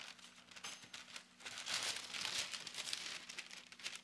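A sheet of paper used under cookie dough crinkling and rustling as it is handled and smoothed on the counter, with a spoon scraping against it; loudest about halfway through, over a faint steady hum.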